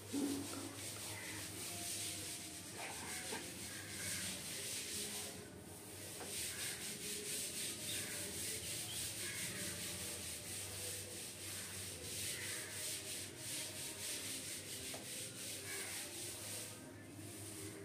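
Paint roller on a long pole being rolled up and down a wall, laying on primer: a continuous sticky, raspy rolling hiss, with short breaks about five seconds in and near the end.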